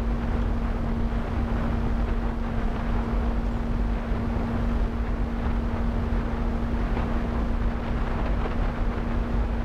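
Skyhunter RC airplane's electric motor and propeller, heard from the onboard camera in level cruise flight: a steady hum at one unchanging pitch, with wind rushing over the airframe and microphone.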